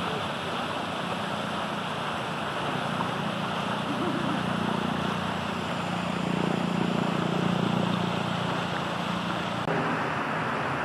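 Steady outdoor background noise with a low hum.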